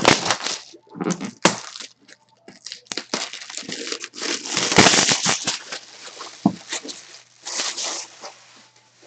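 Plastic wrapping and packaging being torn and crinkled as a trading-card box is opened, in irregular rustling bursts that are loudest about five seconds in.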